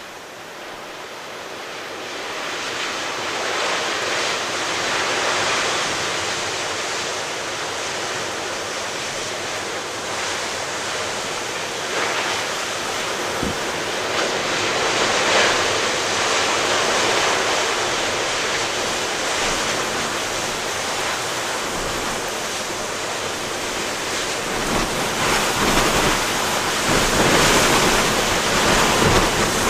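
Rough ocean surf breaking continuously in a strong wind, with wind buffeting the microphone. The roar rises over the first few seconds, ebbs and swells with the waves, and surges again near the end.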